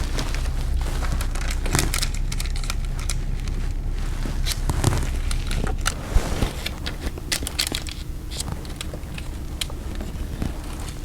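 Plastic window tint film crinkling and crackling, with scattered small clicks and taps, as it is slid into place and tucked into the bottom window gasket with a corner tool.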